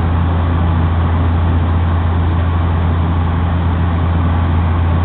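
Steady cabin drone of a Bombardier Q400's turboprop engines and six-bladed propellers in flight: a strong constant low hum over a wide even rush of noise.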